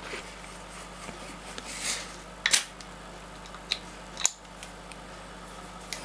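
Yeast starter being shaken by hand in a glass jar to rouse the settled yeast: faint handling noise broken by a few sharp clicks and knocks, the loudest about two and a half seconds in and another a little after four seconds.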